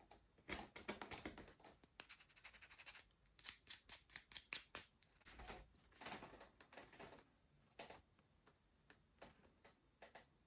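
Faint clicks, taps and scratches of small plastic model parts being handled and fitted by hand while they are glued on. The clicks come thick and fast for the first seven seconds or so, then only a few scattered ones.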